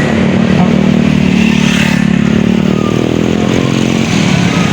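A tour bus engine running with a steady low hum, joined by a higher engine note from about the middle that drops away shortly before the end.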